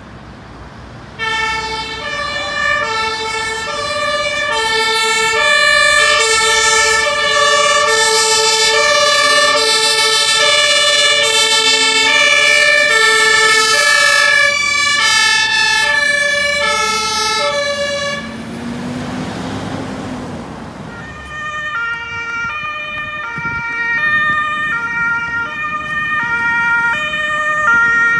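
Two-tone sirens (German Martinshorn) on Hamburg fire brigade emergency vehicles, the high and low notes alternating in even steps. The siren breaks off for a few seconds about two-thirds of the way through, leaving a rush of passing traffic noise, then another vehicle's two-tone siren comes in, a little quieter.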